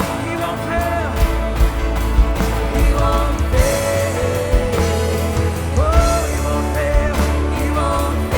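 Live worship band playing an instrumental passage: drums and bass under a melodic lead line that slides between notes, with guitars and keys filling in.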